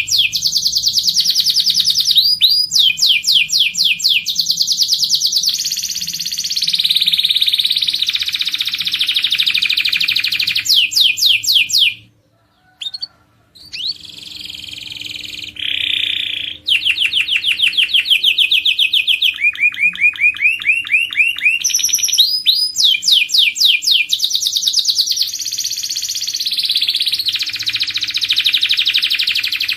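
Domestic canary singing: fast trills of rapidly repeated notes alternating with held rolls, broken by a pause of about a second and a half near the middle.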